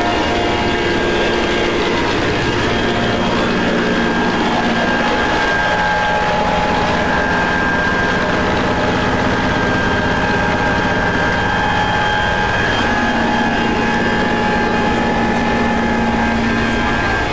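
Cabin noise of a Mil Mi-8 helicopter in flight: its twin turboshaft engines, gearbox and rotors make a loud, steady noise, with several whining tones held over it.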